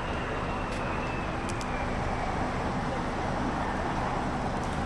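Steady rushing noise of a jet aircraft's engines, with a faint high whine that slowly falls in pitch over the first couple of seconds.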